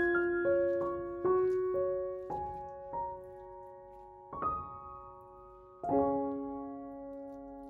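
Background piano music: a slow, gentle melody of single notes and chords, each struck and left to ring and fade, with a long held chord about six seconds in.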